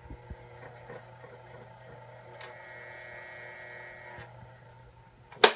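3D LF 40WO electric fan running with its buzzing, rattling noise: a steady motor hum with a higher buzz for about a second and a half in the middle. A loud click comes near the end, and the hum stops with it.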